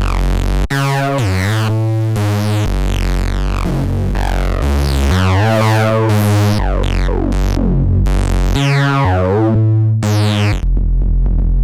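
Analog synthesizer playing a bass line through an SSL Pure Drive Octo preamp, each note changing every second or so with a bright filter sweep falling away after it; the tone turns darker and duller near the end.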